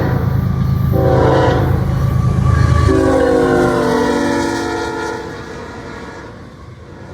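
Diesel freight locomotives passing close by with the horn sounding: the horn breaks off briefly, sounds again, and its chord drops in pitch as the locomotives go past, then fades. A deep engine rumble is loud in the first three seconds and then falls away.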